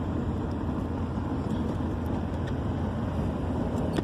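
Steady rumble of a vehicle running, heard from inside the cab.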